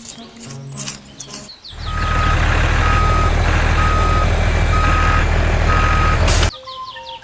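Heavy vehicle reversing: an engine running steadily under a backup alarm that beeps five times, about once a second. It starts about two seconds in and cuts off abruptly. Background music plays before it.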